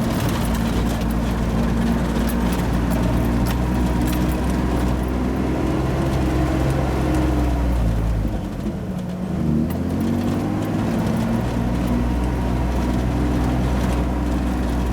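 1988 Toyota 4x4's engine running as it climbs a dirt track, with scattered knocks and rattles from the rough road. About eight seconds in the engine note drops, then climbs again about a second and a half later.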